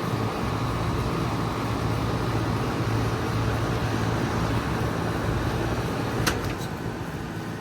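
Lennox Merit series 5-ton heat pump outdoor unit running with a steady compressor hum and condenser fan noise. About six seconds in there is a sharp click and the sound then drops, typical of the contactor opening as the unit shuts down.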